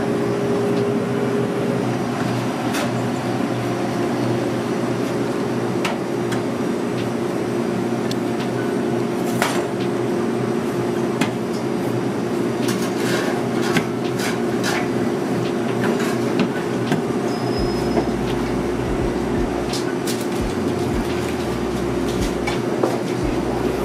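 A steady machine hum of several low tones, with scattered light clicks and taps of handling.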